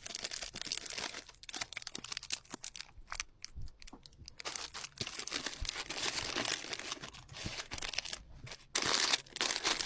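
Crinkly plastic packaging rustling and crackling in irregular bursts as small items are handled, louder about nine seconds in.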